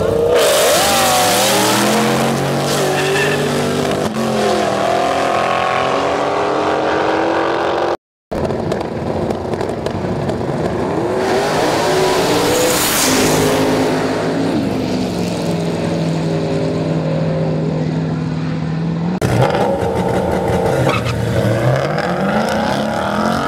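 Drag cars launching and accelerating at full throttle, in several clips cut together. The engine note climbs in pitch and drops back at each gear shift. There is a brief dropout about a third of the way in, and in the middle stretch one steady engine note holds for a few seconds.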